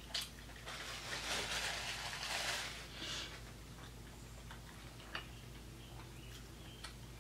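A person chewing a mouthful of bacon cheeseburger with the mouth closed, close to the microphone: soft scattered mouth clicks, with a louder stretch of noise about a second in that lasts a couple of seconds.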